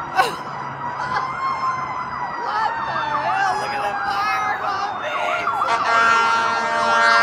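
Emergency sirens sounding together from the freeway below, a fast warbling yelp over a slower falling wail. A steady horn joins for the last second or so, as a fire truck arrives.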